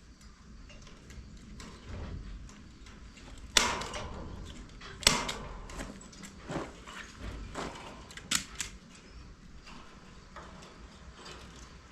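Hand staple gun firing staples into wood to fasten chicken wire: four sharp snaps a second or two apart, the last two close together, with rustling of the wire between them.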